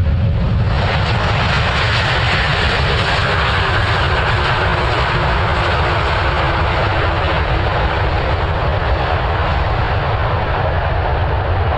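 Airbus A330 airliner's jet engines during landing, a loud, steady jet noise with a deep rumble underneath; the noise swells about a second in and then holds.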